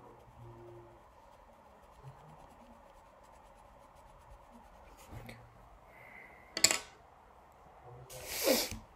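Pens and paper being handled while drawing in a bullet journal: faint rubbing and scratching, one sharp click about six and a half seconds in, and a louder short rasp near the end.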